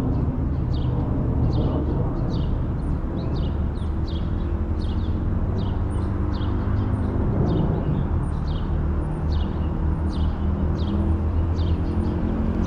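Steady low rumble of city street traffic, with a vehicle engine's hum rising in the second half. Over it, short high falling chirps repeat about twice a second.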